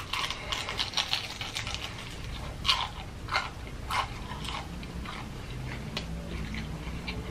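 Close-miked biting and chewing of crispy Popeyes fried chicken, the breading crackling densely at the first bite. A few sharper crunches come around three to four seconds in, then softer chewing.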